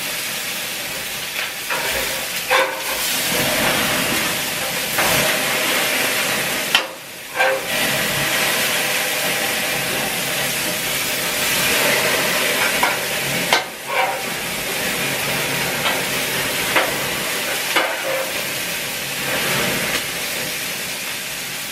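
Burger patties sizzling on a gas grill, a steady hiss as fat drips into the flames and flares up. A few short sharp clicks cut through it.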